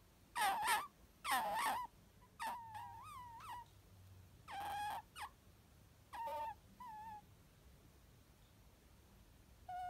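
Pet red fox giving a series of short, high, squeaky whining calls at irregular intervals, each wavering in pitch and lasting under a second, with a final short call near the end.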